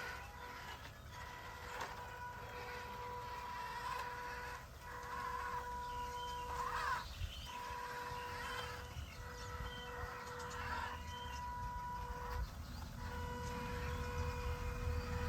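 Small electric RC crawler's motor whining at one steady pitch, in stop-start bursts of one to two seconds, with scratchy noises between the bursts.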